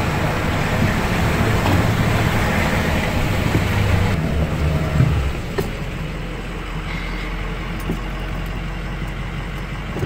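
Pickup truck engine and road noise heard from inside the cab while driving on a rough road. About five seconds in the engine note drops to a lower, steady hum as the truck slows.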